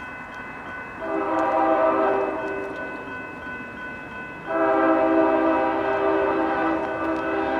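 CSX freight locomotive's air horn blowing as the train approaches: a chord blast about a second in that fades away, then a second, louder long blast from about halfway that holds on.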